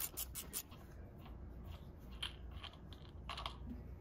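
Hand socket ratchet clicking quickly, about five clicks a second, as the bottom bolt of the outer cam chain tensioner is turned loose; the clicking stops about half a second in, followed by a few scattered light scrapes and clinks of metal tools and parts being handled.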